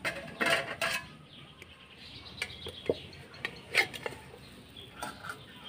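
Metal cookware clattering: the lid coming off an aluminium rice pot, then a steel spatula knocking and scraping against the pot and the steel tiffin box steamed inside the rice. It comes as several separate clinks, the loudest about two-thirds of the way through.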